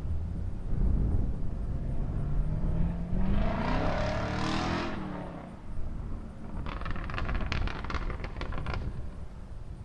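A car passes by, its engine and tyre noise rising to a peak about four and a half seconds in and then falling away, over steady wind rumble on the microphone. Near the end comes a quick run of sharp clicks or rattles.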